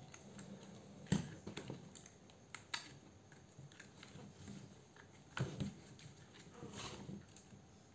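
Handling noise from a Milwaukee cordless saw body and its test-wire clips: a scatter of small plastic knocks and clicks as the tool is turned and the wires are fitted to its battery terminals. The loudest knock comes about a second in, and there are a few more around the middle and near the end.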